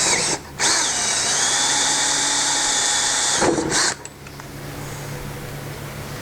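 Electric drill with a hole saw cutting a hole through a snowmobile's plastic panel for a 12-volt outlet. It runs steadily, pauses briefly just under a second in, then runs again and stops about four seconds in.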